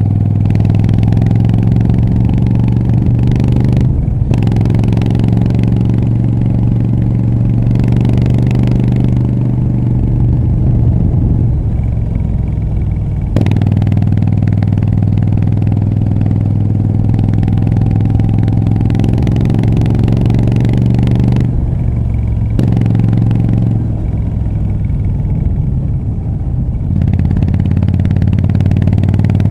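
Moto Guzzi V7 III Rough's air-cooled transverse V-twin running through short Mistral exhaust pipes while being ridden. It pulls up through the revs with gear changes around 4 and 13 seconds in, holds steady for a while, then drops off twice as the rider rolls off the throttle, and settles back to a steady pull near the end.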